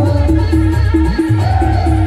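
Live Timli band music: a keyboard plays a short repeated riff over a steady, pulsing bass beat. A higher wavering melody line comes in about halfway.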